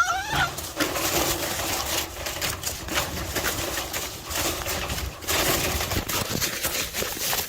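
A fawn's high, wavering bleat in the first half second, followed by a steady rustling, scuffling noise with many small clicks and knocks.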